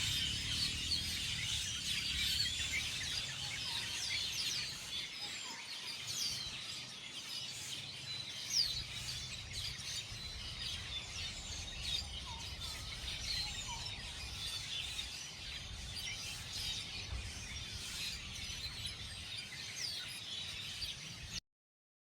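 Many small birds chirping together in a dense, busy chorus of quick, high chirps, over a low rumble. The sound cuts off abruptly shortly before the end.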